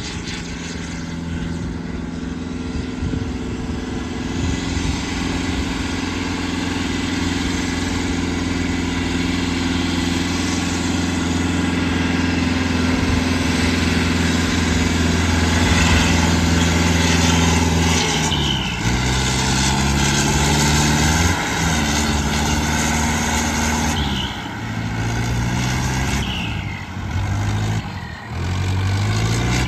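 Turbocharged diesel tractor engine running steadily under heavy load while dragging a soil leveller. From about 18 seconds in, its revs repeatedly dip and pick up again, several times.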